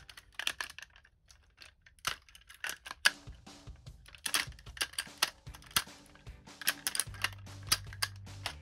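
Hard plastic parts and joints of a Wong Tiger transforming robot toy clicking and snapping as they are folded into place by hand: a string of sharp, irregular clicks.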